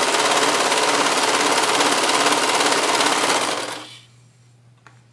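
Brother serger running at speed, its needles and knife stitching and trimming the edge of a double layer of microfiber fabric with a fast, even chatter. It winds down and stops a little under four seconds in, leaving a faint hum and a light click.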